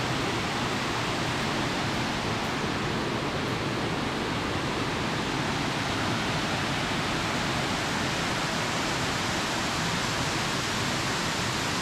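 Tarn Falls waterfall: falling water rushing at an even, unchanging level.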